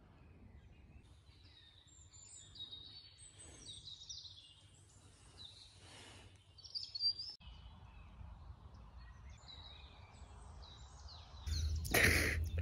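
Songbirds calling faintly in woodland, short chirps and whistles here and there over a low steady background noise. Near the end comes a loud rustle.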